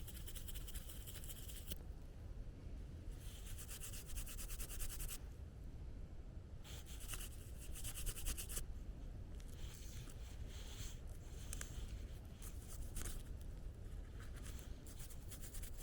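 Fingers rubbing dirt off a small brass find: three bouts of fast, scratchy rubbing about two seconds each, then scattered lighter scrapes and clicks.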